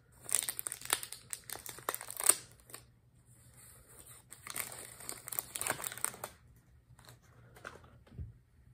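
Thin plastic bag crinkling as it is worked off the top of a glass orchid flask, in two bouts of crackling, the second starting about four seconds in.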